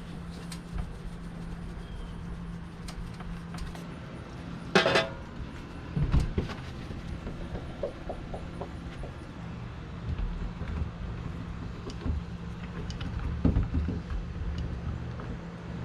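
Scattered clicks and knocks of small metal lock parts and tools being handled during reassembly of a keyless RV door lock. The loudest is a sharp, ringing clack about five seconds in. A steady low hum runs underneath.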